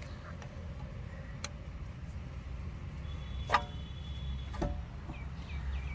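Hand tools and metal parts clicking and clinking as the electric parking brake motor is worked off the rear brake caliper, with one sharper ringing clink about three and a half seconds in. A low steady hum runs underneath.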